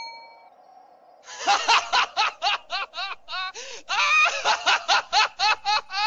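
High-pitched cartoon laughter: a rapid run of short cackling syllables that starts about a second in and keeps going, after a brief faint hum.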